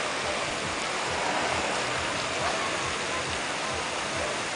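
Steady rushing outdoor noise, with faint voices of people in a crowd mixed in.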